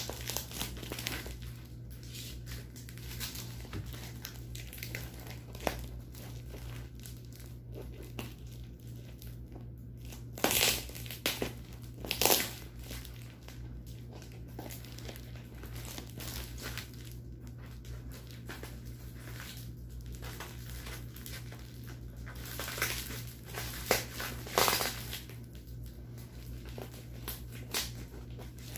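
Packing tape being peeled and ripped off a tightly taped, plastic-wrapped parcel, with steady crinkling of the plastic. Several louder rips come in two clusters, one near the middle and one later on.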